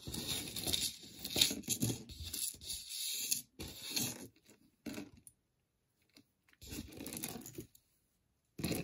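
Rustling and crinkling as items are handled and sorted from a box of jewelry. It comes in uneven bursts for about the first four seconds, falls silent, then there is one short burst about seven seconds in.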